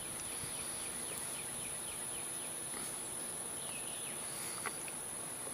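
Outdoor ambience dominated by insects giving a steady, high-pitched continuous drone, with a few faint chirps in the middle and a single short click near the end.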